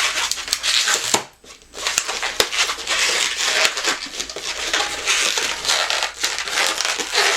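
Latex 260 modelling balloon being handled and twisted, rubbing and squeaking in crackly, irregular bursts, with a short pause a little over a second in.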